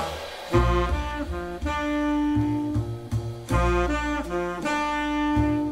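Jazz playing through a pair of Polk L800 tower loudspeakers and picked up by a microphone in the room: a saxophone line of held notes over a deep bass line.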